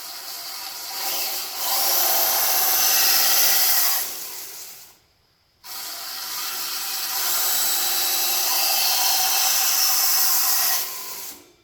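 Belt grinder running in two runs, switched by its foot pedal: about four seconds, a stop of about a second, then about six seconds, each getting louder partway through as the grinding goes on.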